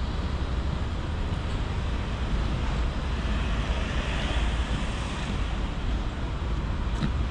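Wind buffeting the microphone as a steady low rumble, over outdoor street noise, with a little more hiss about four seconds in.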